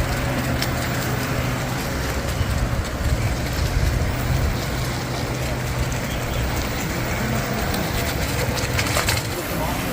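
An engine running steadily with a low hum, under a wash of outdoor noise, with a sharp click about nine seconds in.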